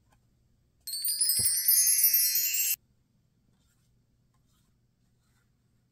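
A sparkling chime sound effect: bright twinkling tones with rising sweeps, lasting about two seconds and cutting off abruptly.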